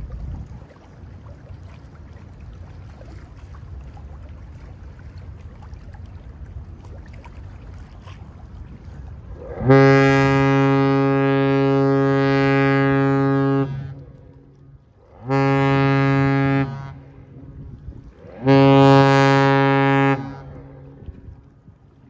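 The bulk carrier Algoma Harvester's deep ship's horn sounding a salute: one long blast of about four seconds, then two shorter blasts.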